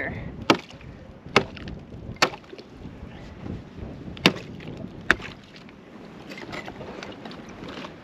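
Thick ice on an animal watering container being struck and broken up: five sharp cracking knocks spread over the first five seconds.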